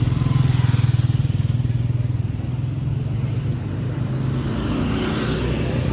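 A motor vehicle's engine running close by: a steady low throb, a little louder in the first couple of seconds, then settling.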